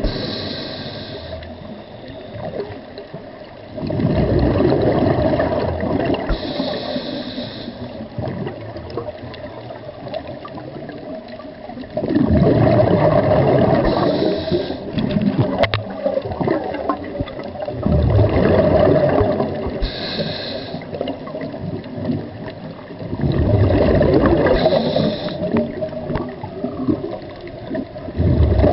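Underwater sound of a diver breathing. A short hiss of each breath in is followed by a longer gurgling rush of exhaled bubbles, repeating about every five or six seconds.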